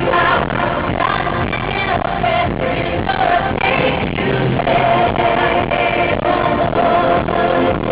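Pop music with singing over a steady beat.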